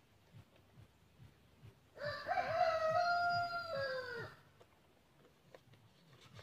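A rooster crowing once: a single call of a little over two seconds, starting about two seconds in, rising at the start, held level, then dropping away at the end.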